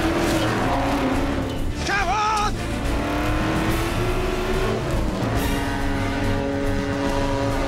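An engine running hard, its pitch climbing and dipping with the revs and then holding steady for the last couple of seconds, under background music.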